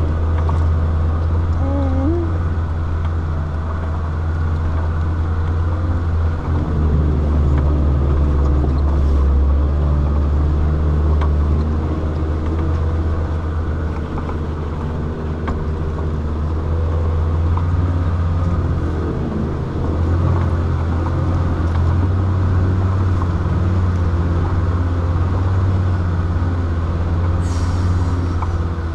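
Land Rover Defender 130's engine running steadily under load as it climbs a steep gravel mountain track: a continuous low drone that rises and falls a little with the throttle. A short hiss of tyres on loose gravel comes near the end.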